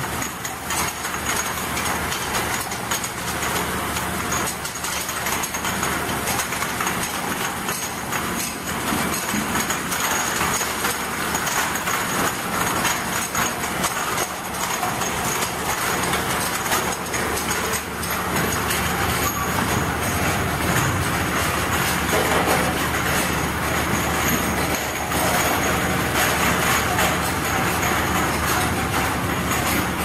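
Ultrasonic vial-washing machine running: a steady mechanical drone with a low hum and a thin high whine over a constant hiss, growing slightly louder about halfway through.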